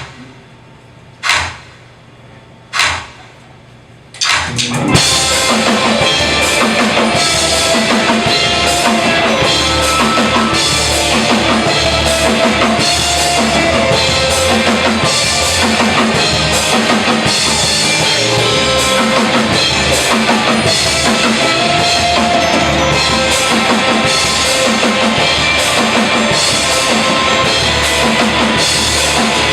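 Two sharp hits about a second and a half apart, then a rock band comes in at full volume, drum kit, bass and guitar playing live with a steady beat.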